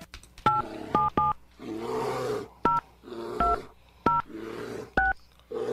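Touch-tone phone keypad dialing seven digits, each a short two-note beep. Between the beeps a bear growls, and a steady ring tone starts near the end.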